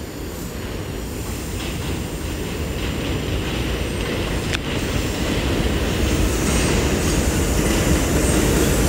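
R142A subway train running in on an elevated track: the rumble of its wheels on the rails grows steadily louder as it draws near. A single sharp click sounds about four and a half seconds in.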